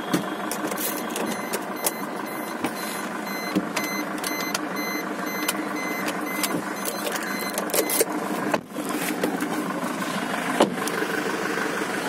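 Car engine running at low revs, heard from inside the cabin while the car is manoeuvred for parking. Over the first eight seconds or so there is an intermittent high electronic beeping, and the sound briefly drops out about eight and a half seconds in.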